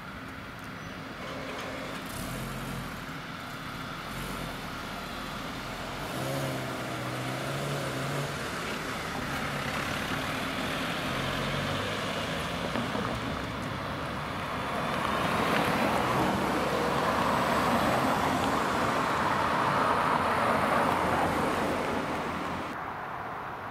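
Cars pulling away from a raised level-crossing barrier and driving over the railway tracks one after another, with engine and tyre noise. The noise swells loudest in the second half and dies down near the end as the road clears.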